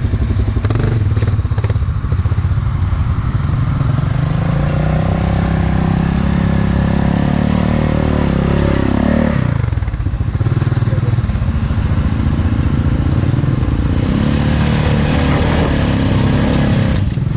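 Off-road vehicle engine running loud under throttle. The revs drop sharply about nine seconds in, then pick up again.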